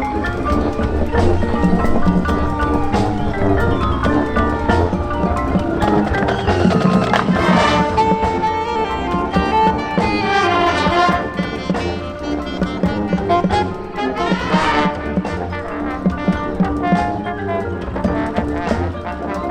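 Marching band playing, brass with a percussion front ensemble of marimbas, xylophones and glockenspiel, which plays several fast sweeping mallet runs in the middle.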